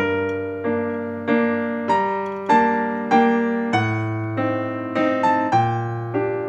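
Background music: a gentle piano melody, one note about every two-thirds of a second over lower held bass notes.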